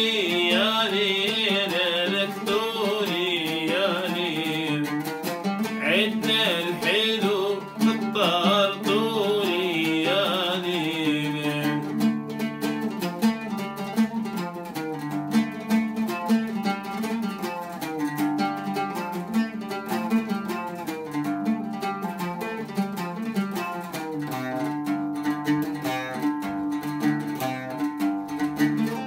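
A man singing a wavering, ornamented line over oud accompaniment for about the first eleven seconds. The voice then stops and the oud plays alone, an instrumental passage of quick plucked notes.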